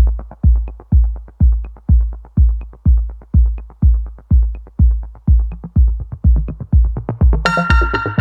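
Electronic dance music with a deep kick drum about twice a second and light ticks between the beats. A synthesizer melody comes in near the end.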